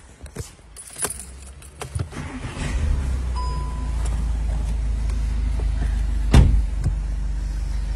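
Car engine starting about two and a half seconds in, after a few clicks of handling in the cabin, then idling with a steady low rumble. A short beep sounds soon after it starts, and there is a single knock a little over six seconds in.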